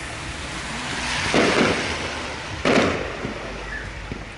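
Fireworks display: two loud bangs of bursting aerial shells about a second and a half apart, over a continuous crackling hiss.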